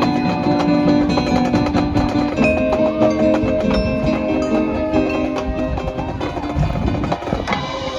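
High school marching band playing its field show music, sustained pitched chords over quick struck percussion notes, with tuned mallet or bell-like percussion prominent. The music shifts to a new chord and texture about two and a half seconds in.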